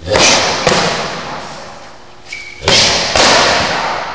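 Martial-arts strikes smacking against a hand-held pad, the first a kick: two pairs of sharp hits, the hits in each pair about half a second apart, each ringing on in a large hall.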